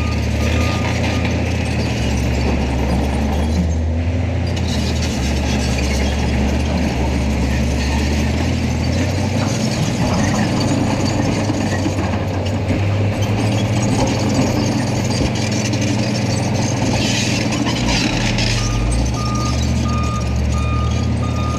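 Diesel engine of heavy earthmoving equipment running steadily under work. A back-up alarm beeps at the start and again near the end.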